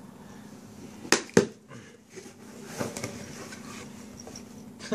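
Cardboard box being opened by hand: two sharp snaps about a second in as the sealed lid gives way, then a softer rustling of cardboard as the lid is lifted.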